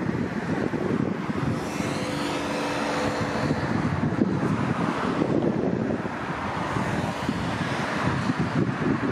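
Cars passing on a multi-lane highway: tyre noise swells and fades as vehicles go by. Strong wind buffets the microphone throughout. A faint steady engine hum joins for a second or two about two seconds in.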